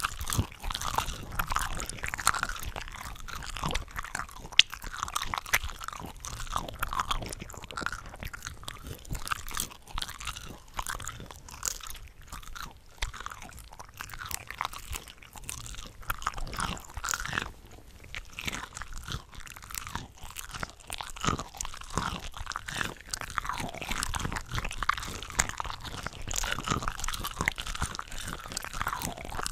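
Close-miked eating of cooked shrimp from a shrimp cocktail platter: bites and chewing, with several eating tracks layered so the sounds overlap in an unbroken stream of small crunches and clicks.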